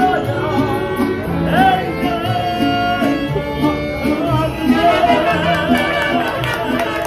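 Music with singing over guitar and a bowed string instrument, with a steady bass beat.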